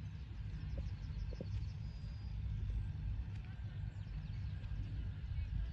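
Steady low outdoor rumble, with faint high chirps in the first half.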